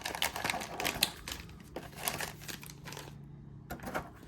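A trading-card box and its card packs being handled: a quick run of small clicks, taps and crinkles for about two and a half seconds, then quieter, with a few more clicks near the end.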